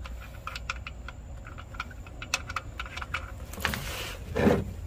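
Light, irregular clicks and taps as the oil drain plug is spun out of the oil pan by hand, with a louder, fuller noise near the end.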